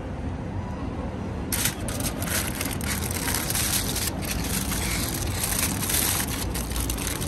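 Crinkly aluminium foil being peeled back by hand from a takeaway food box, giving a dense, crackling rustle that starts about a second and a half in.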